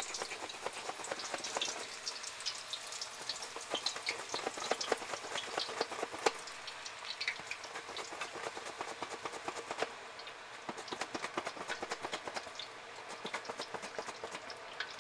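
Raw green plantain slices frying in hot oil for banana chips: a steady sizzle dense with irregular sharp crackles and pops as fresh slices drop into the oil.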